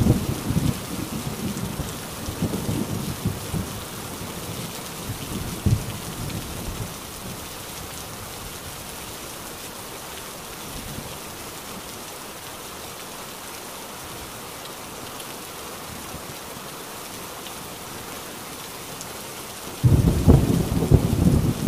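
Heavy, steady rain with thunder: a rumble dies away over the first several seconds, and near the end a sudden loud peal of thunder breaks in.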